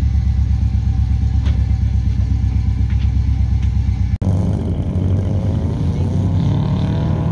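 Subaru Impreza GC8 rally car's engine idling up close with an even, pulsing note; after a cut about four seconds in, the car accelerates along the stage and its engine note climbs.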